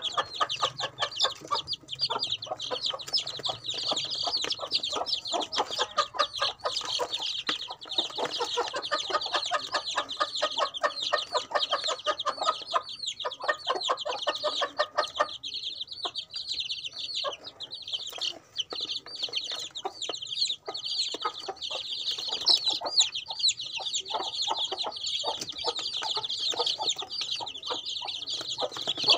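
A flock of young chicks cheeping continuously, many high-pitched peeps overlapping, with a rapid patter of short clicks as they peck and scratch at food in a plastic tray; the clicking thins out for a few seconds past the middle.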